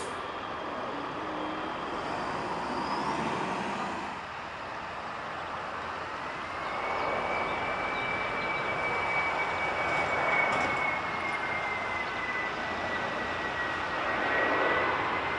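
Jet airliners on landing approach: the broad rumble of a Boeing 767's engines, then a Boeing 737's jet engines with a steady high whine over the rumble from about six seconds in.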